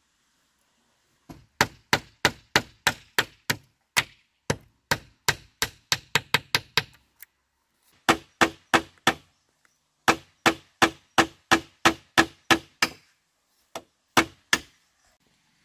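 Repeated sharp blows of a tool on something solid, about three a second, in two long runs broken by a short pause, then a few last blows near the end.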